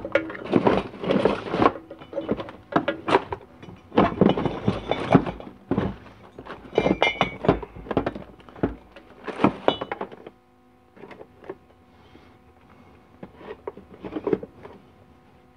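Irregular knocks, clatters and rustling of hands handling objects and a power cord and plug around a bench grinder. The sounds are dense for about the first ten seconds, then sparser and quieter. The grinder wheel is not grinding.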